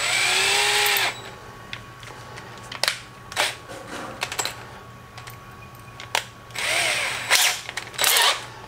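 Cordless drill with a 1/8-inch bit run in three short bursts, its motor pitch rising and falling each time, with a few sharp clicks between the runs.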